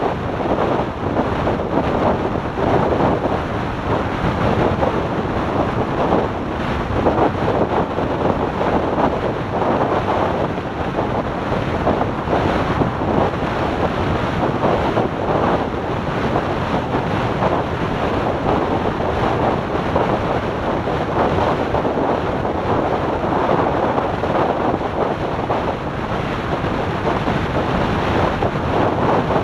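Steady wind rush buffeting the microphone of a motorcycle at highway speed, a dense roar with no clear engine note standing out.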